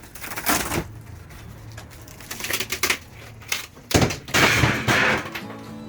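Rotten wooden ceiling panelling being pried and torn down: several bursts of cracking and crunching wood. The loudest and longest comes about four seconds in.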